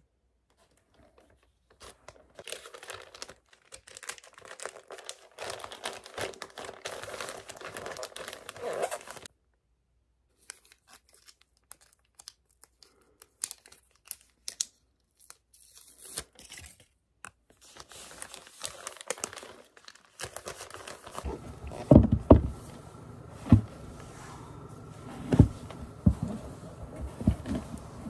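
Plastic mailer envelope crinkling and rustling as items are packed into it, then small rustles and a peeling sound as an adhesive backing strip is pulled off. Near the end come several loud, heavy thumps of rubber boots being pulled on and stamped on a wooden floor.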